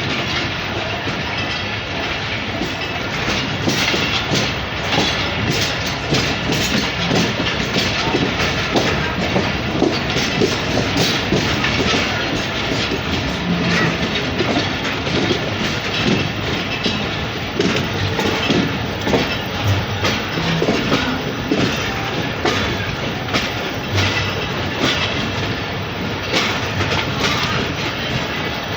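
Allama Iqbal Express passenger train running, its wheels clattering over the rail joints in an irregular clickety-clack over a steady rumble.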